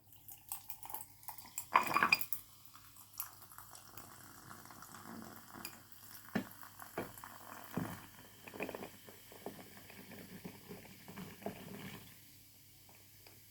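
Cold Fanta poured into a glass over ice, fizzing, with clinks of ice and glass. The loudest clatter comes about two seconds in.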